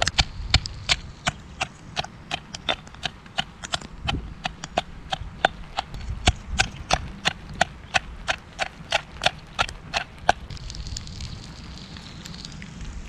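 Pestle pounding in a stone mortar, sharp, even knocks at about three a second, stopping about ten seconds in.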